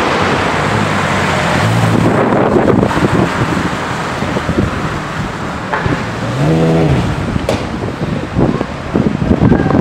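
Audi R8 Spyder's engine driving off down the street, with wind buffeting the microphone. A little over six seconds in, an engine note briefly rises and falls in pitch.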